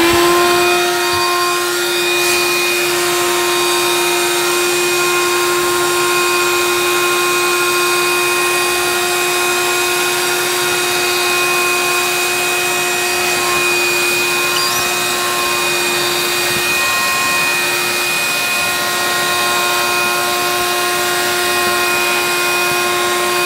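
Shop vacuum switched on, its motor spinning up to a steady high whine over a rush of air, as its wide nozzle sucks leaves and dirt out of a car radiator's fins.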